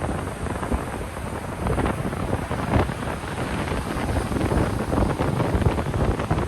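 Ocean surf washing onto a beach, a continuous rushing noise, with gusty wind buffeting the microphone and adding a low rumble.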